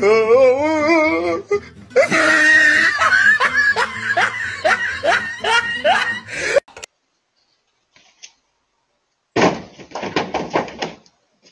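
People laughing hard, with repeated short rising bursts about twice a second, which cut off abruptly about six and a half seconds in. A few seconds of silence follow, then another short run of laughing near the end.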